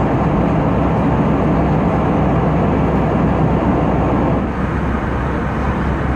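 Steady rushing cabin noise inside an Airbus A320-214, airflow and engine drone heaviest in the low range, a little quieter from about four and a half seconds in.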